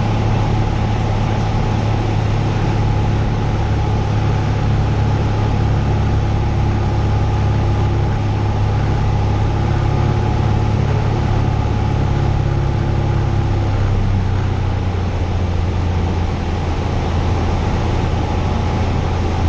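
Cessna 172's piston engine and propeller droning steadily in flight, heard inside the cabin with a rushing wind noise on top. The engine note steps down slightly about three-quarters of the way through.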